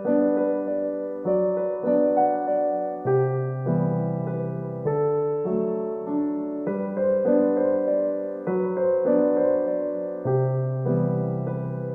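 Background music: a gentle piano or electric keyboard piece playing slow sustained chords that change about every second.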